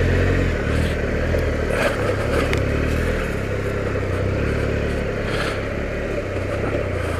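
Triumph Explorer adventure motorcycle's three-cylinder engine running at steady, low revs while riding a dirt forest trail, with a few faint knocks and clatter over the rough ground.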